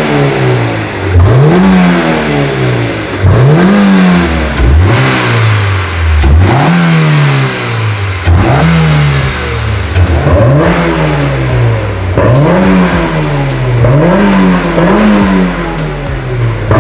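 Exhaust of a 2006 Honda S2000 (AP2) 2.2-litre four-cylinder engine through an ASM I.S.Design silencer kit muffler, revved over and over. It makes about nine revs, each a quick rise in pitch and a slower fall, one every second and a half to two seconds.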